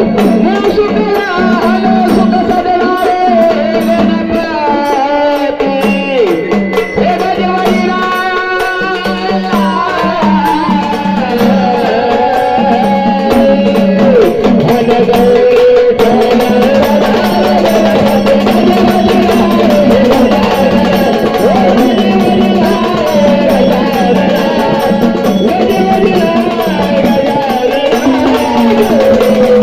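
Marathi gondhal devotional folk music: a melody that bends and glides over a steady drone, with hand-drum percussion keeping an even beat.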